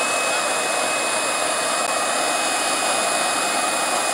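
A model jet turbine running steadily: an even rushing hiss with a thin high whine held on one pitch.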